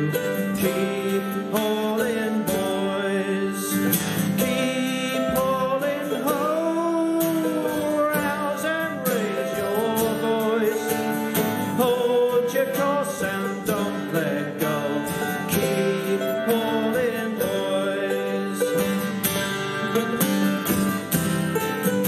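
Small acoustic folk band playing an instrumental passage: plucked strings strumming and picking under a wind-instrument melody, steady and continuous.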